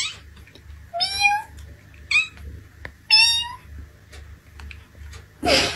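A black cat meowing up at a person, about four short meows roughly a second apart, some sliding upward in pitch. A noisier, breathier sound comes near the end.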